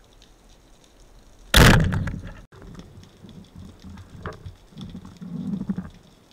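Band-powered speargun fired underwater at a grouper: one sudden loud crack about one and a half seconds in that rings away over about a second. After it, low uneven water noise as the speared grouper is handled on the shaft.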